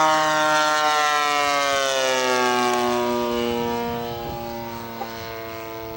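Engine and propeller of a radio-controlled scale P-51 Mustang passing overhead, its steady drone dropping in pitch as it goes by and then fading away.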